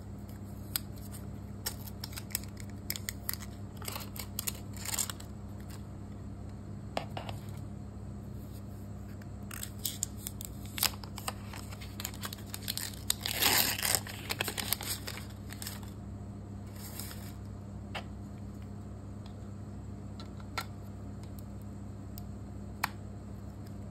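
Small plastic clicks and rubbing as a white plastic laptop power adapter and its folding UK three-pin plug head are handled and the plug head is fitted onto the adapter, with the loudest stretch of handling noise about halfway through and a single click near the end.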